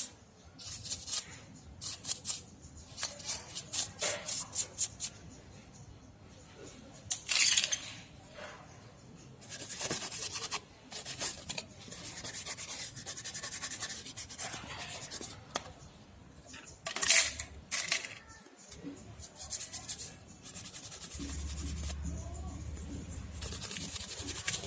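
Repeated short scraping and rubbing strokes on small hard parts, coming in quick runs with pauses between them.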